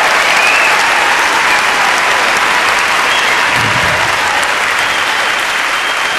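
Large audience applauding steadily, with a whistle or two rising above the clapping.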